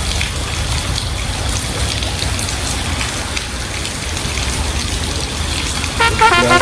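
Steady hiss of heavy rain falling, with a low rumble under it. Near the end a run of tones stepping between pitches begins, like a melody.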